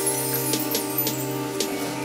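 Background music with sustained tones over a light, regular percussive beat.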